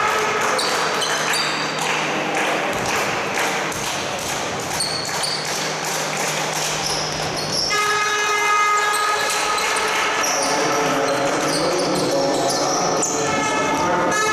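Sounds of a basketball game in a large hall: the ball bouncing and players' shoes on the hardwood court, under a steady pitched tone that fades after about a second and returns strongly about eight seconds in.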